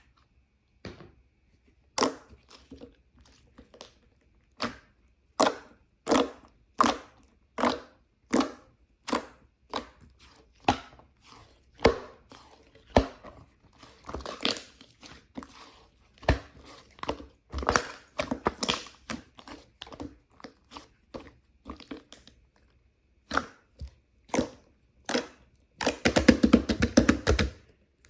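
A run of separate sharp taps and clicks, about one or two a second, with soft crinkling between them, then a dense rapid rattle of many clicks for about two seconds near the end.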